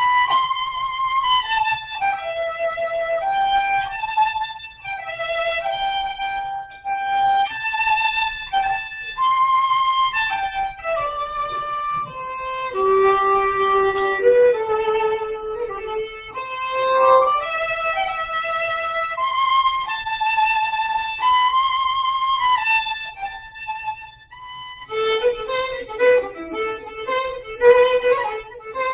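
Violin playing a slow Celtic-style melody of long, held notes. About 25 seconds in, the playing changes to a quicker run of short notes.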